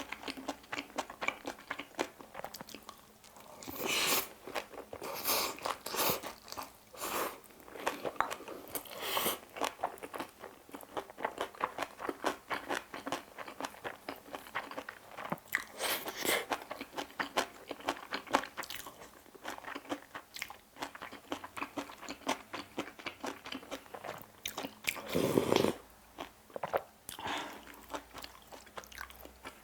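Close-up eating sounds: a person chewing mouthfuls of bibimbap with crunchy vegetable side dishes, a steady run of wet crunching and chewing with several louder bites.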